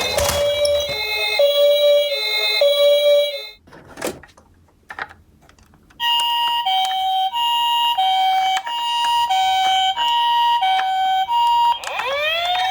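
Japanese-style two-tone ambulance sirens sounding the alternating high-low "pee-po" pattern, each note held a little over half a second. A lower-pitched siren sounds for about three seconds, then there is a short gap with one brief noise, then a higher-pitched siren runs from about six seconds in. Near the end a rising wailing siren starts.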